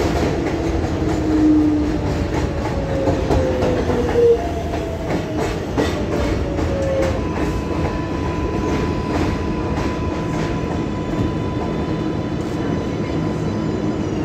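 Kawasaki R188 subway car's propulsion heard from inside the car: the traction motor whine falls slowly in pitch through the first half as the train slows, then settles into one steady higher tone, over continuous rail rumble and wheel clicks at the rail joints.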